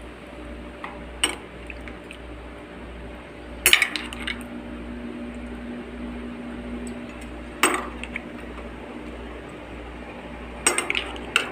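Metal spoon clinking against a glass baking dish about five times, spaced a few seconds apart, while spooning marinade over raw chicken, over a low steady hum.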